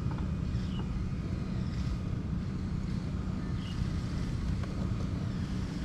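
Steady low outdoor rumble with a few faint short high chirps over it.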